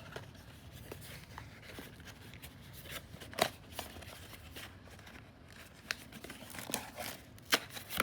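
Blind-box toy packaging being opened by hand: scattered crinkling and tearing with small clicks, the sharpest snap about three and a half seconds in and a few more near the end.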